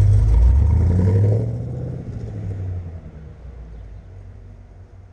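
1978 Corvette's V8 engine running strongly for about a second and a half, then dropping away to a much quieter, steady low run.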